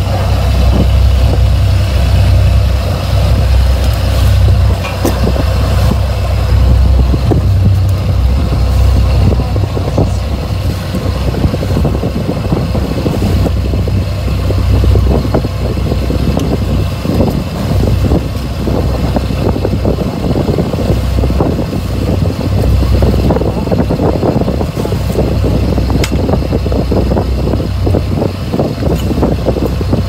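A boat's engine running steadily, a loud low rumble heard from on deck.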